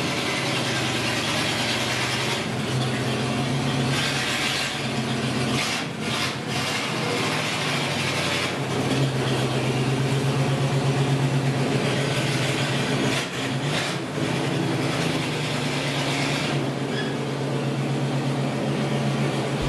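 Engine of an old panel delivery truck running as the truck is driven slowly away, a steady low engine note.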